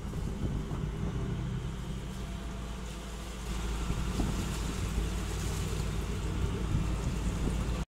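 A sailing yacht's inboard diesel engine running steadily at low speed, a constant low rumble that gets a little louder about three and a half seconds in, then cuts off suddenly near the end.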